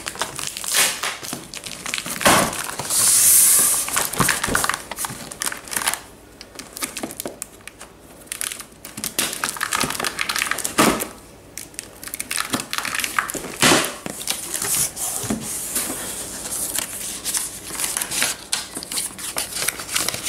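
Cardboard box flaps and plastic wrapping being handled by hand: irregular crinkling and rustling, with a loud burst of crinkling about three seconds in and a few sharp knocks against the cardboard.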